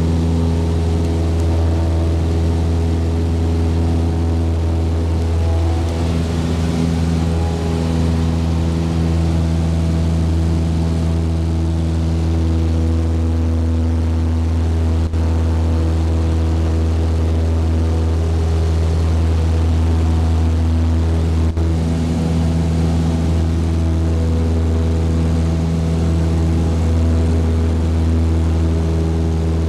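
Single-engine piston light airplane's engine and propeller droning steadily at climb power after takeoff, heard inside the cabin, with an even pitch throughout.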